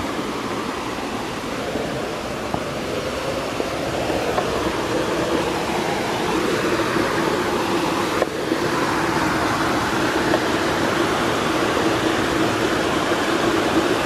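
Steady rushing of a waterfall and stream cascading over rocks, growing slightly louder.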